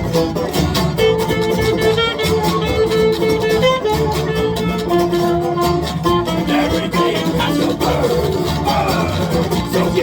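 A live folk string band playing an instrumental passage: plucked strings over a steady bass line, with a held melody line and an even percussive clicking beat.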